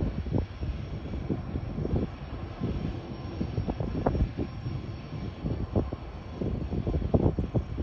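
Low, uneven rumble of a TasRail DQ-class diesel locomotive approaching, swelling and fading irregularly.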